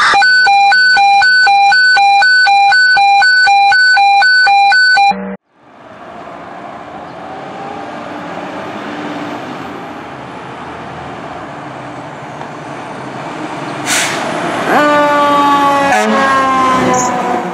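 Fire engine sirens. A loud pulsing tone at one steady pitch, about four pulses a second, cuts off suddenly after about five seconds. Road noise follows as the engine approaches, and near the end a siren rises sharply and then slowly falls in pitch, with two brief sharp blasts.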